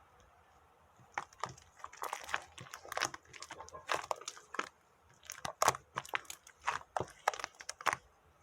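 Irregular crunching and crinkling noises: a quick, uneven run of sharp crackles and clicks starting about a second in.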